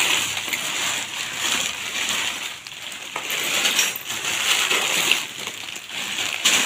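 Clear plastic bags of loose LEGO bricks being handled: the plastic crinkles and rustles while the bricks inside clatter and click against each other in irregular bursts.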